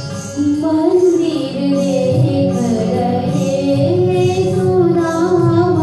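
A woman singing a Hindi devotional bhajan into a microphone, amplified over a loudspeaker, with electronic keyboard accompaniment; long held notes that slide from pitch to pitch.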